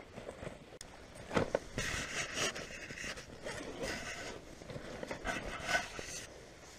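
Rummaging through a backpack: fabric rustling and rubbing with a few scattered knocks, the sharpest about a second and a half in.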